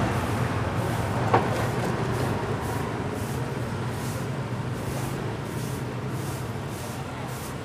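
Short grass hand broom sweeping a concrete pavement in repeated strokes, about two a second, over a steady low rumble. A single sharp click about a second and a half in is the loudest thing.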